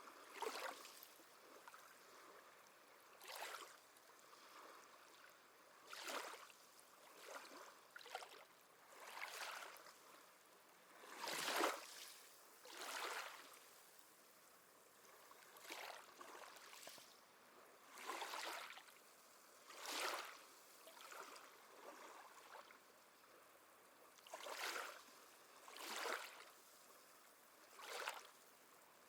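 Small sea waves lapping and washing softly on the shore in irregular swells, one every one to three seconds, with a faint hiss between them. The biggest wash comes about midway.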